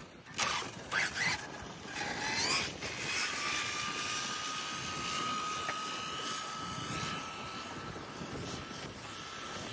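A high-speed RC speed-run car's motor whining as it accelerates: a rising whine a couple of seconds in, then a steady high whine that climbs slowly in pitch. A few sharp knocks come in the first second and a half.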